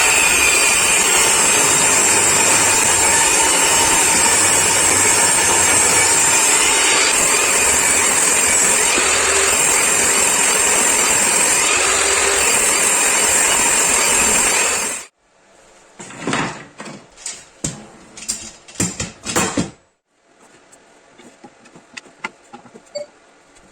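A woodworking power tool running steadily and loudly for about fifteen seconds, then cutting off abruptly. A quick run of sharp knocks and clatters follows, then only faint small taps.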